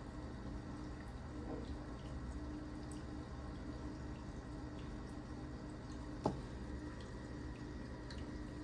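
Steady low room hum with a few faint ticks, and one sharp click about six seconds in.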